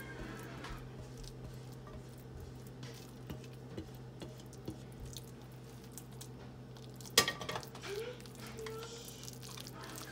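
Silicone spatula scraping a thick, wet filling out of a saucepan and pushing it around a foil baking pan, with soft squishing and scraping. About seven seconds in the pot clanks down once, loudly, followed by a few lighter knocks, all over a steady low hum.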